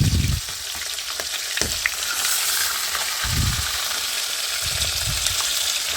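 Pieces of catfish, traíra and cará frying in hot oil in a frying pan: steady sizzling with a few sharp pops as the oil spatters, typical of leather-skinned catfish in hot fat. Two dull low bumps come in the middle.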